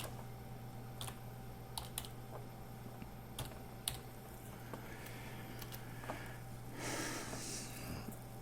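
Faint, scattered clicks of a computer keyboard and mouse, single clicks a second or more apart, over a steady low electrical hum. A soft rustling noise lasts about a second near seven seconds in.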